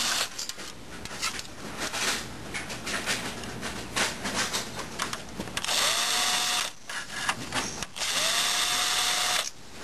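Cordless power screwdriver backing out a laser printer's fuser mounting screws: short runs of motor whine that rises as it spins up, one about six seconds in and a longer one from about eight seconds in, with clicks and rattles of handling between.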